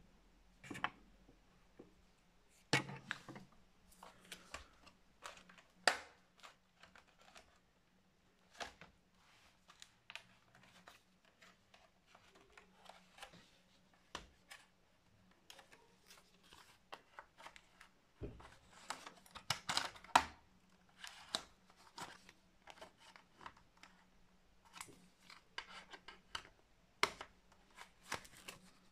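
Plastic clips of an HP 15-db laptop's base panel clicking and snapping loose as an old credit card is prised and slid along the case seam. The sharp clicks and light scrapes are scattered, with two busier flurries: about two-thirds of the way through and near the end.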